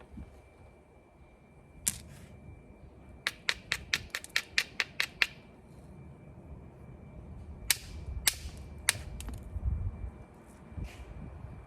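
Obsidian being knapped into a stone tool: sharp clicks of hard strikes on the glassy stone. There is a single click, then a quick run of about a dozen small clicks, about six a second, then a few more spaced strikes.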